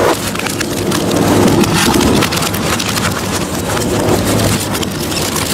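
Industrial twin-shaft shredder's cutter discs crunching through a bicycle and mixed scrap: a dense, continuous run of loud cracks and snaps.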